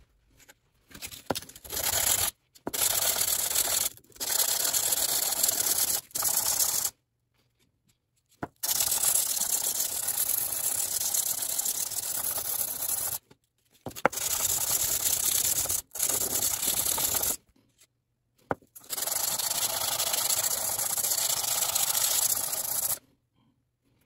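Metal bottom sealing surface of a faucet cartridge rubbed back and forth by hand on sandpaper: a steady scratchy sanding in several long stretches with short pauses between them, stopping about a second before the end. It is the polishing out of corrosion roughness on the cartridge's sealing face, the cause of a dripping faucet.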